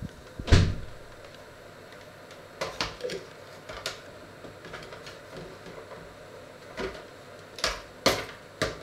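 Handling knocks and clicks from a plastic digital thermometer-clock held up close and moved about: a dull thump about half a second in, then a scattering of sharper clicks and taps.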